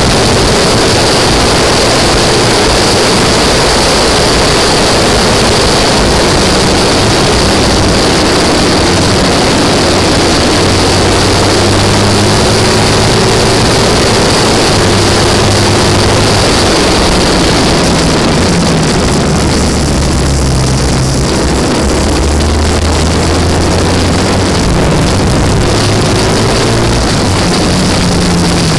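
Classic racing sidecar outfit's engine running hard at speed, heard under heavy wind rush on the microphone. The revs rise and fall through gear changes, dropping lower about twenty seconds in and then climbing again.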